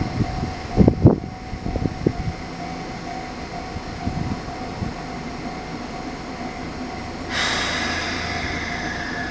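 Nishitetsu electric train running, with a steady hum and a faint steady tone. A few low thumps come in the first two seconds, and a sudden hissing rush sets in about seven seconds in and holds.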